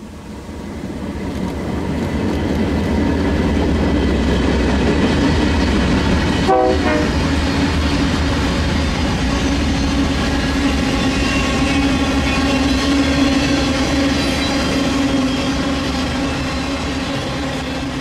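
Freight train led by a GE Dash 9 diesel locomotive passing close by. The rumble builds over the first couple of seconds, then autorack cars roll past with steady wheel and rail noise and a steady droning tone.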